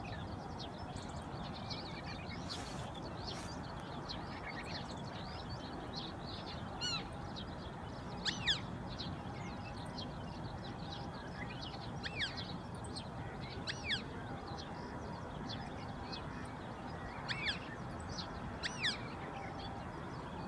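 Eastern marsh harrier calling: short, high, curving whistled notes, about seven louder ones spread through the stretch, some in close pairs. They sit among many fainter high chirps, over a steady outdoor hiss.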